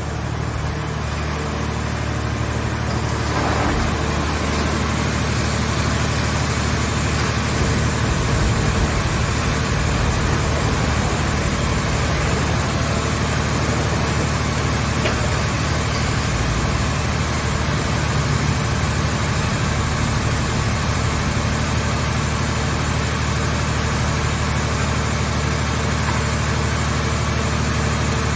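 Scrap car shell baler's engine-driven power unit running steadily, with a low, even engine hum under broad machine noise that grows slightly louder a few seconds in.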